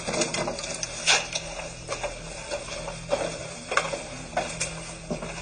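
Irregular sharp clicks and ticks, roughly one a second, with rustling over a steady low electrical hum.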